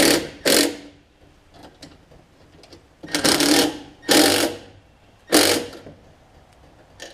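Cordless impact driver running the carburetor mounting screws into a Briggs & Stratton Quantum engine. It goes in five short bursts of rattling hammering: two quick ones at the start and three longer ones a few seconds later.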